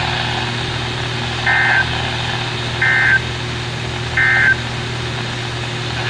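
Emergency Alert System SAME digital data bursts: three short, buzzy tone bursts, a little over a second apart, over a steady hum. Their shortness fits the end-of-message code that closes an alert.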